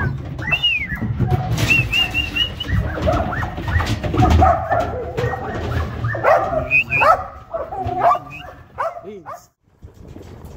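A working kelpie barking repeatedly in quick runs while pushing sheep up a ramp, after a few sharp whistle notes at the start. The barking stops suddenly about nine seconds in.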